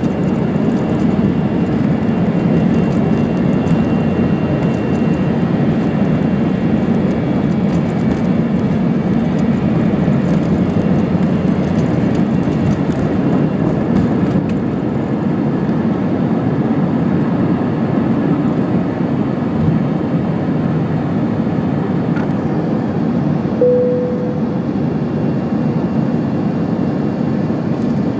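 Steady rumble of an Airbus A321-200's jet engines and airflow, heard inside the cabin during the takeoff. A single short tone sounds briefly late on.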